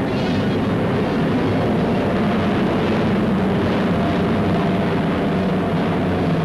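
Aircraft piston engines droning steadily at high power, a loud, even roar with a steady low hum.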